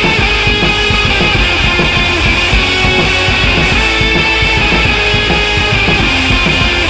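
Loud rock music with guitar and drums.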